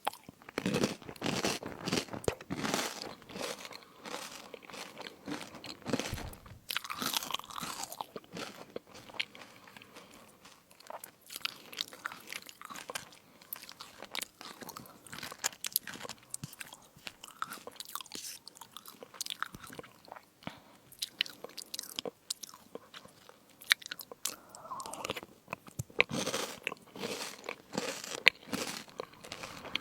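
Crunching and chewing of crisp fruit crisps: many sharp, irregular crackling bites. The crunching is busiest near the start and again near the end.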